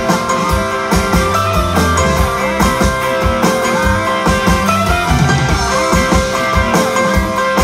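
A live pop-rock band playing: drum kit keeping a steady beat under bass, electric guitar and electric piano.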